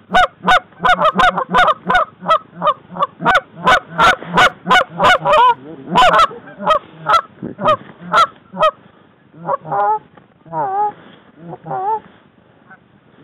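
Goose calls blown in a fast, loud run of short honks and clucks, about two to three a second, thinning after about nine seconds to a few slower calls that waver in pitch.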